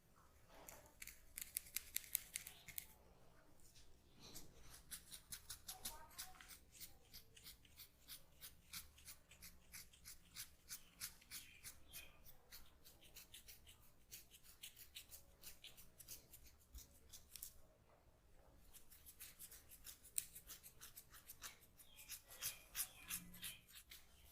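Barber's scissors snipping rapidly, about four or five crisp clicks a second, in long runs broken by short pauses.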